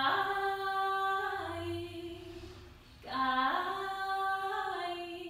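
A woman singing two short unaccompanied phrases, each stepping up in pitch, holding the note and easing slightly down, as a soft way to end the song.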